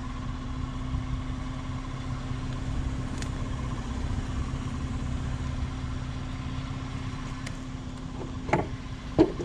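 A vehicle engine idling steadily, a constant low hum, with a couple of short knocks near the end.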